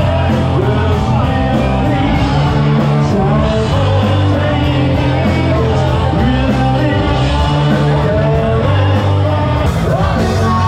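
Loud rock music with a singing voice, starting abruptly just as it begins.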